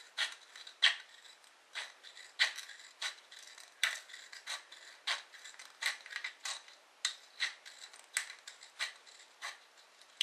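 Nail scissors snipping through the thin aluminium wall of a drinks can, one crisp snip every half second or so, trimming the cut edge smooth.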